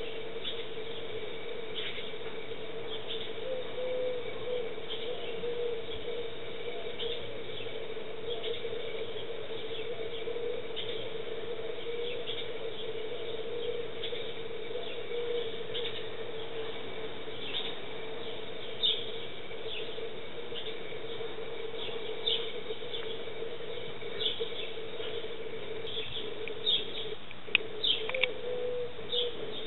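Sparrows chirping: many short, high chirps repeating throughout, with a few louder chirps near the end, over a steady low hum.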